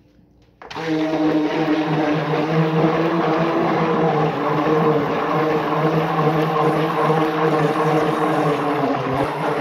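Electric stick blender switched on under a second in and running steadily, its motor humming as it blends a bowl of liquid homemade soap mixture.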